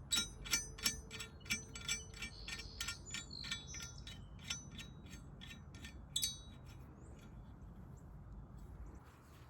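Small steel parts clinking against each other with a light metallic ring: a quick run of clinks, about three a second, thinning out after about four seconds, one more cluster near six seconds, then they stop.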